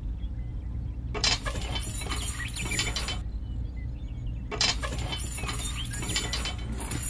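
Two spells of dense mechanical clicking, each about two seconds long, as a wire linkage is fitted to a miniature tractor's wooden cultivator. A steady low hum runs underneath.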